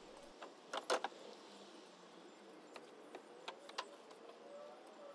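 A few faint clicks and knocks, the loudest a double knock about a second in and lighter ticks a few seconds later, with a faint squeak near the end.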